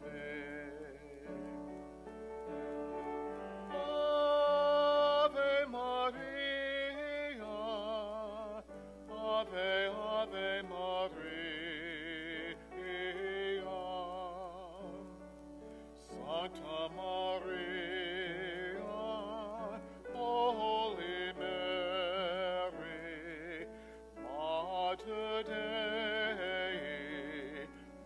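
Solo voice singing a slow Latin hymn with a wide vibrato on its held notes, over a sustained chordal accompaniment, in phrases with short breaks between them.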